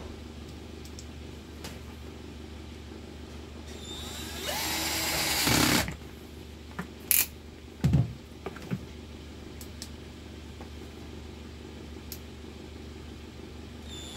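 9.6 V cordless drill driving a screw into a fan's gearbox housing for about two seconds, starting about four seconds in with a rising whine that then holds steady. A few short knocks follow a couple of seconds later.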